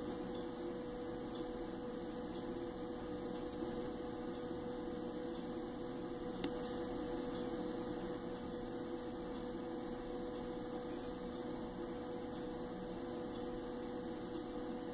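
Steady electrical hum with a constant mid-pitched tone, and a single sharp click about six and a half seconds in.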